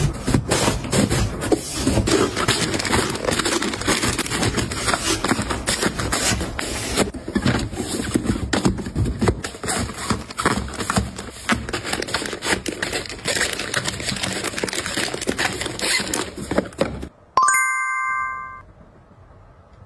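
Plastic-wrapped tissue packs crinkling, rustling and knocking against each other and the fabric storage bins as they are packed into a drawer, with many small rapid taps. Near the end the handling stops and a short bright chime rings and fades.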